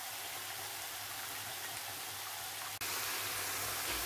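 Chicken, onion and spices sizzling in a frying pan: a steady hiss that jumps louder after a sharp click about three quarters of the way through.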